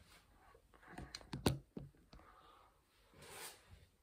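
Faint movement sounds of a person stepping back and turning: a few sharp taps, most likely footsteps, about a second and a half in, and a soft rustle of clothing a little after three seconds.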